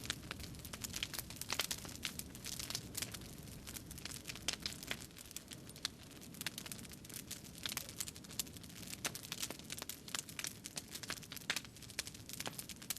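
Irregular crackling and crinkling clicks, several a second and uneven in strength, over a faint low hum.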